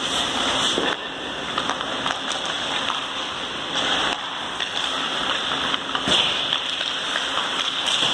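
Hockey pucks being shot at a goalie on an ice rink: sharp cracks of stick on puck and puck impacts about four times (about a second in, near four seconds, near six seconds and near the end) over a steady background hiss.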